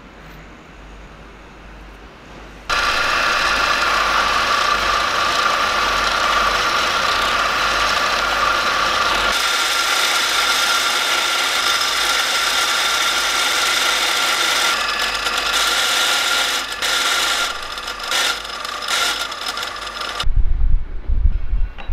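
A power tool starts suddenly about three seconds in and runs loudly and steadily with a held whine, then cuts in and out over the last few seconds. A loud low rumble takes over near the end.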